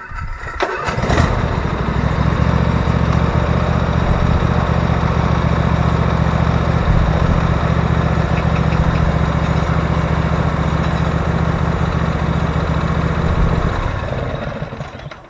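2018 Husqvarna 46-inch garden tractor's engine starting about a second in, then running steadily while the tractor is driven slowly forward onto a mower lift, and dying away near the end as it is shut off.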